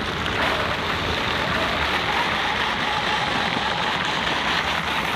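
The screw-studded rear wheel of an electric snow racer spinning on ice, its 240 screw heads scraping and chipping the surface in a steady hiss.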